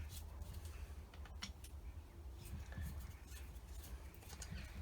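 Faint scattered clicks and light taps from a carburettor being handled and turned over on a workbench, over a steady low hum.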